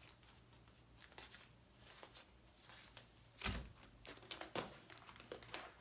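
Faint handling clicks, then one solid thump about three and a half seconds in as something is put back into a kitchen cabinet, followed by a few small knocks, over a faint steady low hum.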